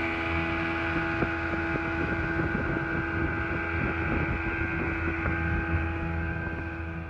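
Outboard motor of an aluminum fishing boat running steadily at cruising speed, with water rushing past the hull and wind on the microphone.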